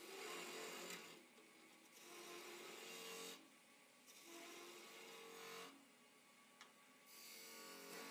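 Turning tool cutting into spinning wood on a lathe, making a hissing scrape in four cuts of a second or two each, with short pauses between.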